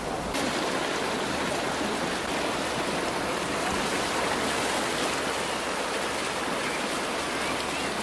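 Fast-flowing water rushing steadily through a narrow concrete channel.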